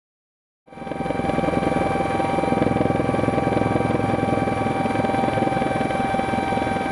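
Helicopter engine and rotor noise, a steady fast chop with a whine over it, cutting in suddenly about a second in.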